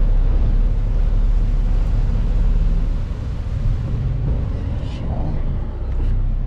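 Engines of a high-speed passenger ferry running as it pulls away from the pier: a loud, steady low rumble, with wind on the microphone.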